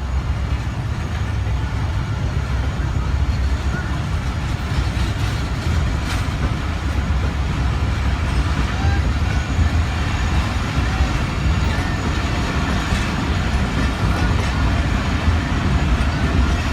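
Train in motion: a steady low rumble from the running train, with a few faint clicks.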